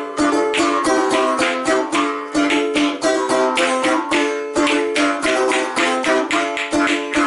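Balalaika strummed fast and steadily with a jaw harp (vargan) droning along, a folk improvisation on the two instruments.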